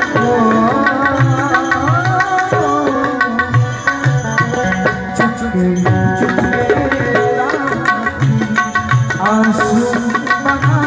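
Live Indian ensemble music: harmonium and melody lines over a steady tabla beat, with small hand cymbals striking along.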